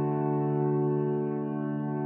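Background music: a soft, sustained keyboard chord held steadily.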